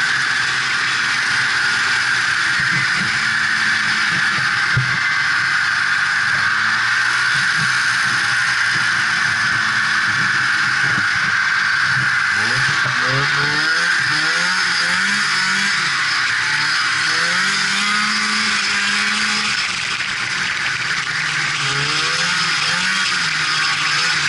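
Polaris Indy Sport 340 snowmobile's two-stroke engine running under way on a trail, its pitch rising and falling with the throttle, with a run of quick rises around the middle and again near the end.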